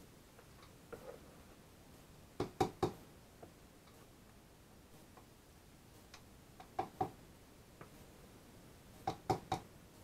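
A spatula tapping against the rim of a plastic mixing bowl in three quick clusters of two to four knocks, knocking off the last soap batter into the mould.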